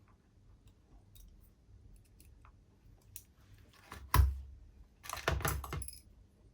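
Small clicks and clinks of tiny metal model-locomotive parts being handled and fitted, with a sharp knock and thump about four seconds in and a short clattering burst a second later.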